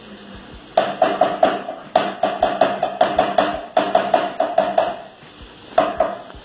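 Spoon knocking rapidly against a metal saucepan, about six knocks a second in several short runs, each knock ringing with the same tone: knocking spoonfuls of butter off into the pan.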